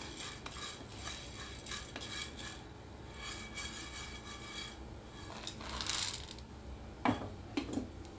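Wooden spatula scraping and stirring split urad dal as it dry-roasts in an iron pan. About five and a half seconds in, the roasted lentils are tipped and swept out of the pan onto a steel plate with a brief rushing patter, followed by a sharp clank and a smaller knock.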